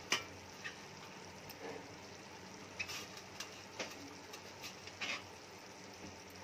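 Thick egg kuzhambu gravy simmering on low heat in a pan: a faint steady hiss with scattered small pops and ticks, the loudest just after the start.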